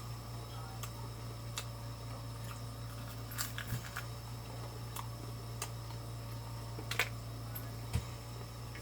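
Chewing and mouth noises while eating crispy fried chicken: scattered soft clicks and crunches, a few seconds apart, over a steady low electrical hum.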